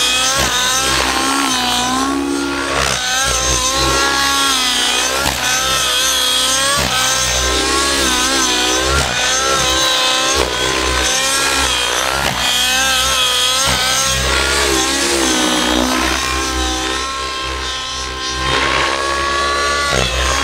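O.S. 105 nitro glow engine with Powerboost tuned pipe in a Velocity 90 RC helicopter, running hard in aerobatic flight, its pitch swinging up and down without a break as the rotor loads and unloads. The engine is running a little rich yet still pulling strongly.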